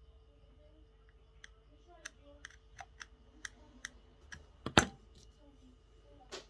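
Metal tip of a small screwdriver clicking and scraping against the LED chips and circuit board of an opened LED bulb, a run of sharp light clicks with one louder knock after about five seconds.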